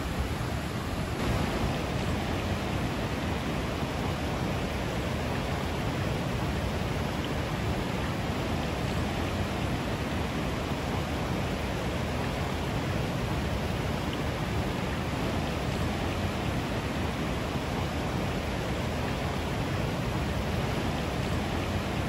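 Krka River cascades spilling over travertine steps: a steady, full rush of falling water.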